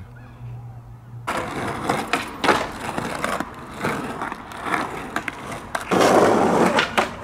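Skateboard rolling, its wheels rumbling with sharp clacks and knocks of the board, starting abruptly about a second in. It is loudest about six seconds in.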